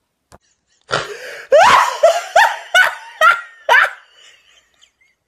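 A person laughing hard: loud, repeated bursts of laughter starting about a second in, about two a second, dying away after about four seconds.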